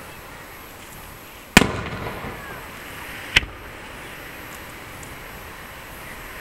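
Aerial firework shells bursting: a loud boom with a rumbling tail about one and a half seconds in, a shorter bang about two seconds later, and another at the very end.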